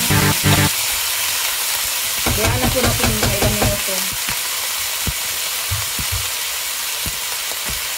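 Chicken pieces frying in hot olive oil in a nonstick pot, a steady sizzle. Background music cuts off under a second in, and a few soft knocks come in the second half.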